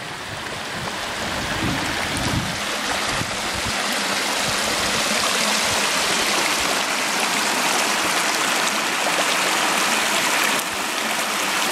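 Shallow mountain creek babbling over flat bedrock and small riffles: a steady rushing splash of water that grows a little louder over the first few seconds and then holds.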